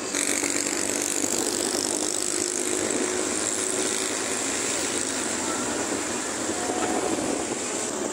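Steady traffic noise heard while riding a motorcycle: engines and tyres on the road under a constant rush of wind over the microphone.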